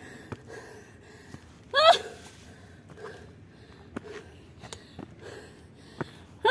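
A hiker breathing hard on a steep trail climb, with one short voiced gasp about two seconds in and another at the very end. Faint footfalls on the dirt path between them.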